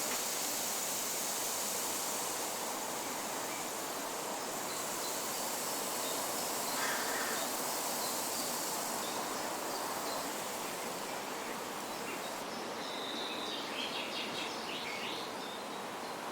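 Forest soundscape: a steady hiss of rain stick under a high insect drone that stops about twelve seconds in, followed by a short burst of bird chirps near the end.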